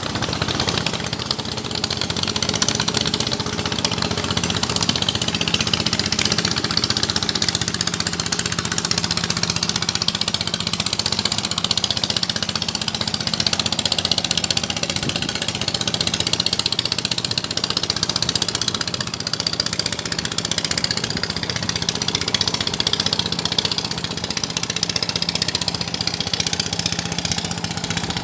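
A small boat's engine running steadily at a low, even speed.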